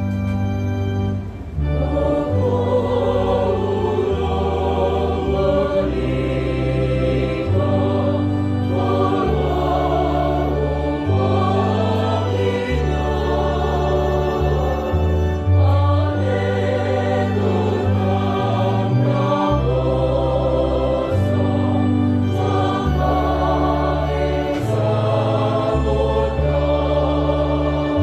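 Church choir singing with organ accompaniment. The organ's held bass notes sound alone at first, and the voices come in about two seconds in.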